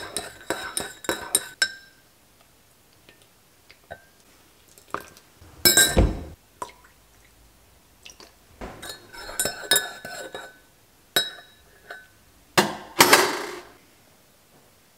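Glassware and dishes clinking: several short ringing clinks, with a heavier knock about six seconds in and another, longer clatter near the end.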